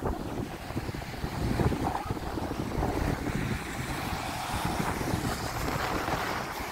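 Wind buffeting the microphone in irregular gusts over the wash of small waves breaking on a sandy shore.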